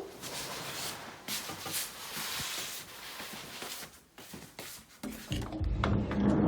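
Irregular rustling and rubbing noises, with a low rumble coming in about five seconds in.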